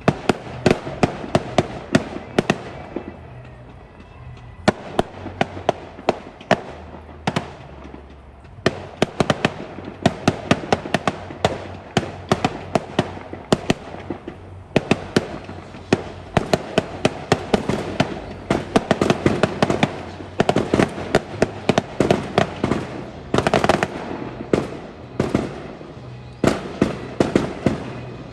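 Fireworks going off: rapid volleys of sharp bangs and crackles, several a second, broken by a few short lulls.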